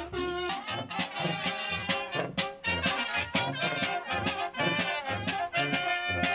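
Brass band music with a steady beat, several brass instruments playing a tune together.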